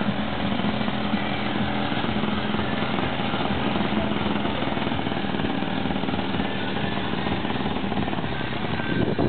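Paramotor trike's engine running steadily with a rattling hum, growing louder and rougher right at the end.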